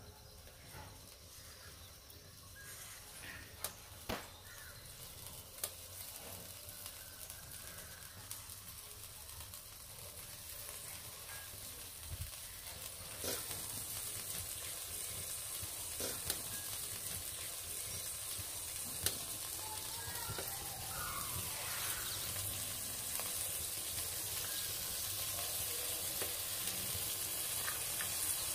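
Seeds frying in hot oil in a clay pot, a sizzling hiss that builds and grows louder through the second half, with occasional sharp pops.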